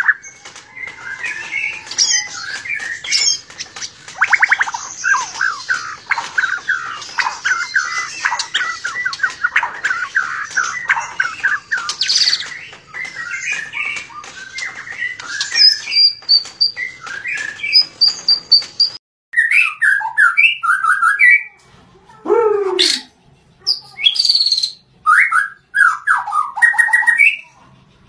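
White-rumped shama singing a loud, varied song of fast trills, repeated notes and whistles. About two-thirds of the way through the song breaks off suddenly, then goes on as separate phrases with short pauses between them.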